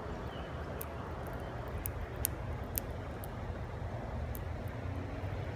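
Steady low background rumble with a handful of short, sharp high ticks scattered through it.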